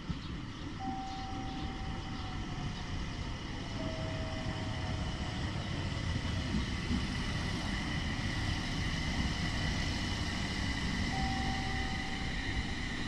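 A vehicle rumbling, slowly growing louder, with a higher steady tone followed by a slightly lower one, heard near the start and again near the end.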